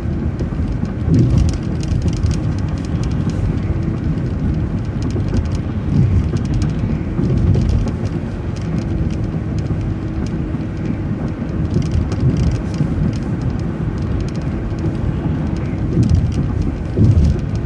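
City bus engine and road noise heard from inside the bus while it drives, a steady low rumble with a few louder low thumps.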